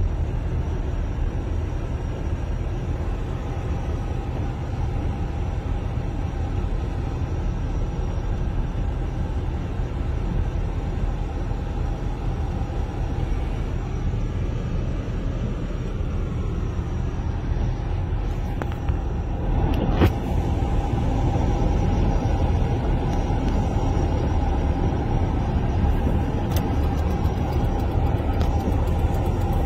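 Steady low rumble of a car driving on a rain-flooded road, heard from inside the cabin: engine and tyres on the wet road. A single knock about two-thirds of the way through, after which the rumble runs slightly louder.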